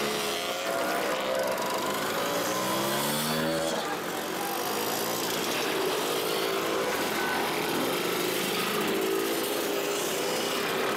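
A stream of classic scooters, Vespas and Lambrettas, riding past one after another, their small two-stroke engines buzzing and rising in pitch as each rider opens the throttle.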